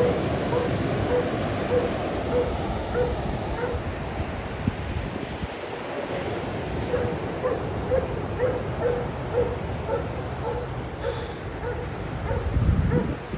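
An animal's short call repeated steadily, about one and a half times a second, over a steady low rush of surf.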